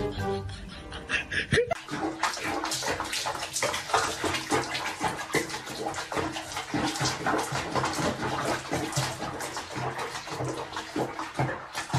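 Water splashing and sloshing in a plastic basin as a cat moves in its foamy bath, with many quick, irregular splashes. Brief music at the start cuts off about two seconds in.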